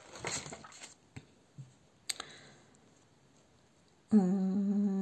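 Paper rustling as a spiral-bound colouring-book page is turned and settled, with a single sharp click about two seconds in. Near the end a woman's voice holds a long hum at one steady pitch.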